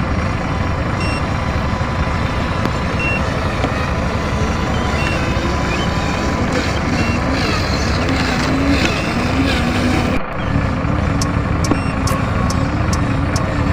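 Steady truck engine sound from an RC dump truck driving, with a short high beep about every two seconds. A brief drop-out comes about ten seconds in, followed by a run of quick ticks.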